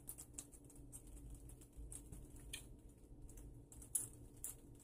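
Faint chewing of a mouthful of soft potato stew: small wet mouth clicks and ticks, with one sharper click about four seconds in.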